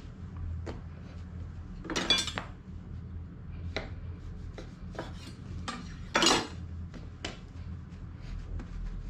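A kitchen knife scraping across a wooden cutting board, two short scrapes about four seconds apart, amid light clicks and taps of soft white bread slices being moved and pressed flat, over a low steady hum.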